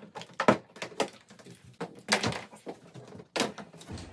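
Several sharp clicks and knocks from a wooden (OSB board) shipping crate being taken apart: its side-panel clip fasteners unlatching and the panels knocking as they are lifted off.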